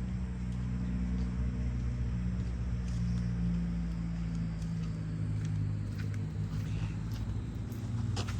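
A motor vehicle's engine running steadily at a low, even pitch, with a sharp click near the end.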